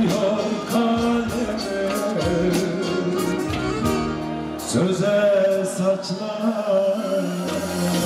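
A man singing a Turkish folk song live through a microphone over band accompaniment with a steady beat; a little past halfway he holds one long note.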